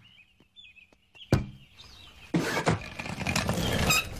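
Cartoon sound effects: faint bird-like chirps, a single sharp impact about a second and a third in, then a couple of seconds of noisy clatter.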